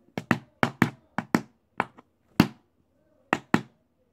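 Tap shoes striking a board on the floor: about a dozen sharp taps in an uneven rhythm, many in quick pairs, with a pause about two and a half seconds in before two more taps.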